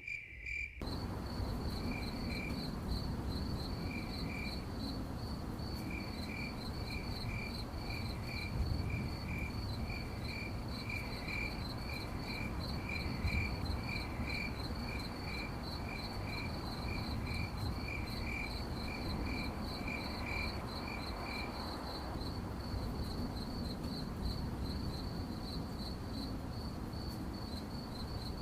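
Crickets chirping: one keeps up a steady run of high, rapid chirps, while a second, lower-pitched cricket chirps about twice a second and stops about three-quarters of the way through. The sound cuts out for a split second at the very start.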